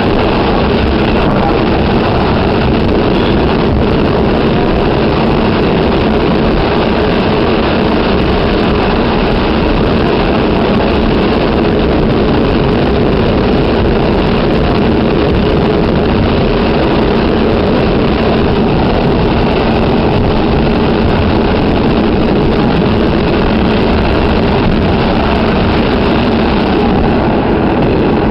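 Staten Island Railway train running at speed, heard from inside the passenger car: a loud, steady running noise with no breaks or separate knocks.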